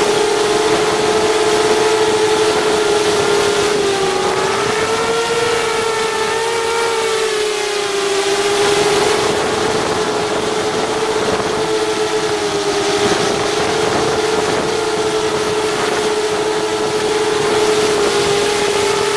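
Brushless motors and propellers of an FPV racing quadcopter, heard close up from a camera mounted on its frame: a steady buzzing whine whose pitch wavers slightly up and down as the throttle changes.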